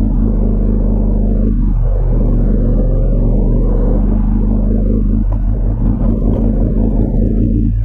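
2004 Honda CBR1000RR's inline-four running through a Jardine titanium aftermarket exhaust while riding, a steady loud drone with a few brief dips.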